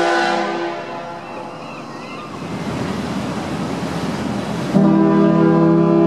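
Ferry horn ending a blast, the sound dying away over the first second, then a stretch of plain background noise. About three-quarters of the way in, another ferry horn starts suddenly, louder, and holds a steady low blast.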